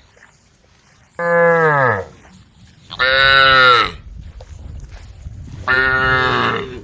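Cows mooing: three loud moos, each just under a second long, about a second and a half apart, the pitch dropping at the end of each call.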